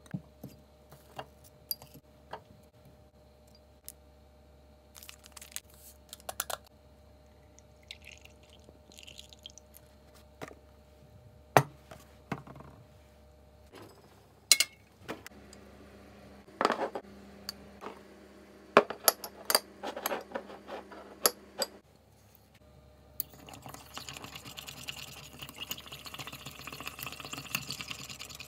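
A run of kitchen handling sounds: sharp clicks and knocks of utensils, a plate and a mug being set down. A microwave oven hums steadily for about six seconds past the middle. Near the end comes fast, continuous clinking of a metal spoon stirring a drink in a ceramic mug.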